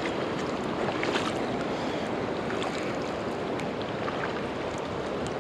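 Steady rush of a river running high and fast in flood, with a few faint clicks over it.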